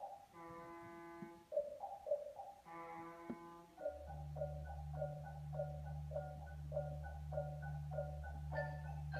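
Percussion ensemble playing: marimba notes alternate with held chords. About four seconds in a steady low drone enters under a repeating mallet figure, which grows busier and higher near the end.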